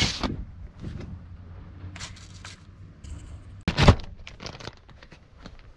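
Thin plastic bag crinkling and rustling in short bursts as it is handled, with a louder knock a little past the middle.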